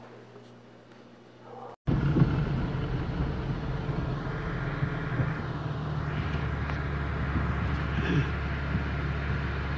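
Car running, heard from inside its cabin: a steady low rumble that starts suddenly about two seconds in.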